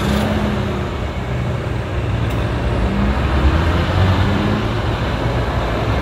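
Road traffic pulling away over a level crossing: a car and a heavy truck accelerating across, with a steady rumble of engines and tyres.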